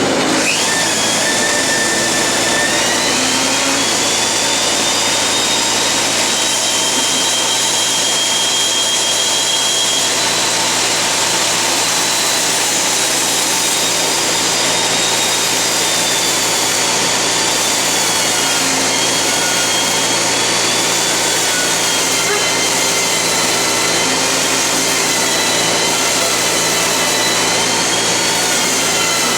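Hitachi CB-75F resaw bandsaw running with a dust collector, ripping a strip off a hard maple board. A loud, steady machine noise with a high whine that wavers in pitch.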